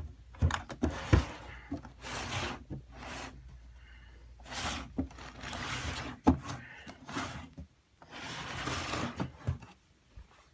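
Handling noise: a run of scrapes and rubs with a few sharp knocks, about a second in and again around six seconds in, from the LEGO model or the camera being moved around it.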